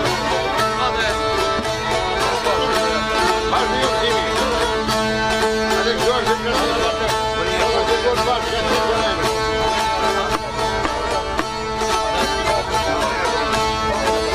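Live Albanian folk music from a small ensemble of çifteli, other plucked long-necked lutes and accordion, playing a fast ornamented melody over held notes and a steady beat.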